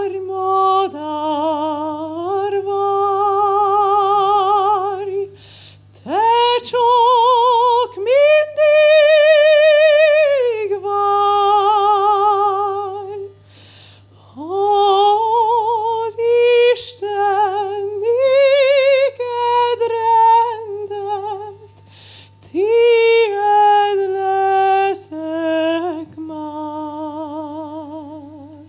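A woman opera singer singing a slow Hungarian folk song unaccompanied into a microphone, in long held notes with a wide vibrato and short breaks between phrases. A steady low hum runs underneath.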